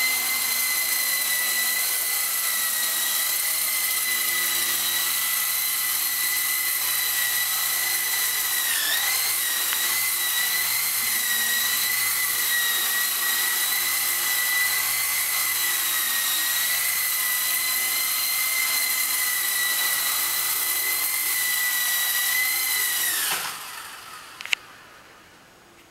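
E-flite CX3 Huey coaxial electric micro RC helicopter in flight, its motors and rotors giving a steady high whine that wobbles in pitch briefly about nine seconds in. Near the end the whine drops away quickly as the helicopter lands and the rotors spin down, followed by a few sharp clicks.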